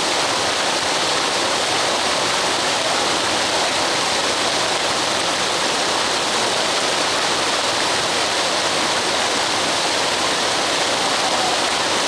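Fountain water jet splashing down in a steady, unbroken rush of water.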